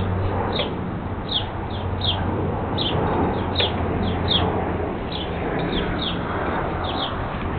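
A bird chirping over and over, short high notes that drop in pitch, one or two a second, over a steady low hum.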